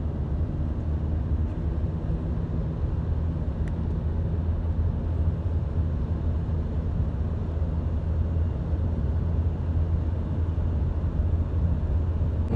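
Road noise of a moving car heard from inside the cabin: a steady low rumble of tyres and engine.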